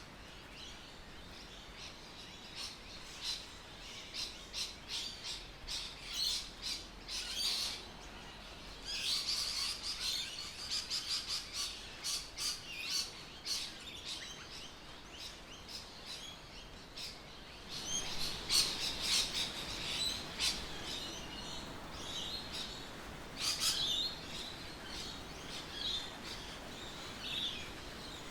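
Birds chirping and calling, many short chirps overlapping over a steady background hiss.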